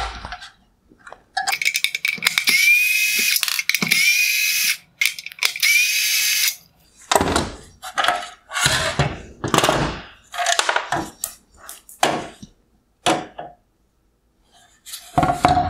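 Cordless screwdriver whirring in several short runs as it backs out T20 Torx screws, its whine rising as it spins up. Clunks and knocks of hard plastic parts being handled follow.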